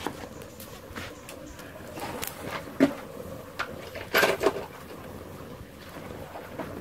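Clay pot of braised fish still boiling after being lifted off the fire: a low bubbling haze with scattered clicks, and a few louder knocks about three seconds and four seconds in.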